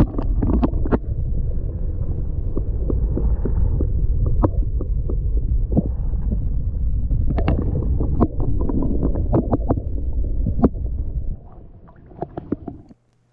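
Muffled underwater rumble of water moving around a submerged camera, with scattered clicks and knocks as the camera is handled. The rumble drops away about eleven seconds in.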